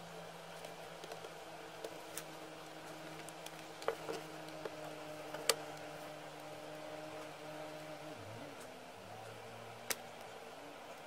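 Light plastic clicks and taps from handling an HP Pavilion x360 laptop's case, the sharpest about five and a half seconds in and another near the end, over a steady low hum that shifts pitch about eight seconds in.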